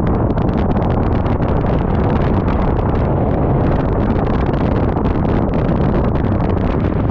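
Wind buffeting the microphone of a camera riding on an open handlebar vehicle, over the steady noise of the moving vehicle on the road. The level holds even throughout, with no change in speed.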